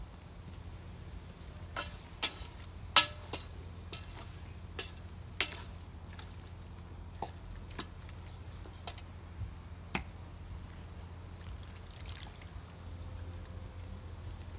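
A wooden spoon stirring stew in a metal cauldron, giving scattered, irregular clicks and knocks, the loudest about three seconds in, over a steady low hum.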